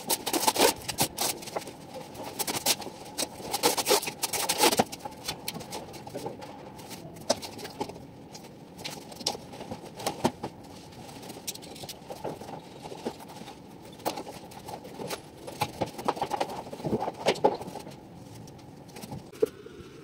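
Scattered clicks, taps and rubbing from hand work on a bundle of wooden slats: a cloth wiping the wood, then a tape measure and a metal square handled against it.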